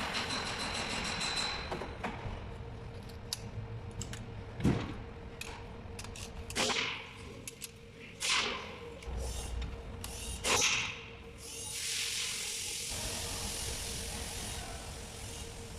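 Hand-tool work on a car's front strut held in a spring compressor: scattered metal clicks and knocks, with a loud knock about five seconds in and three louder strokes falling in pitch later on.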